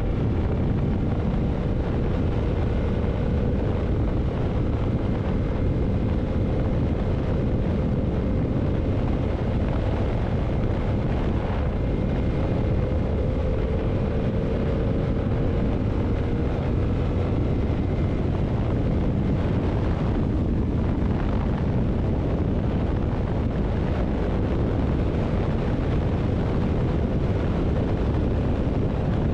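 Yamaha MT-07's parallel-twin engine running at a steady cruise under heavy wind rush on the microphone. A faint engine tone sinks slowly in pitch during the first half, as the bike eases off.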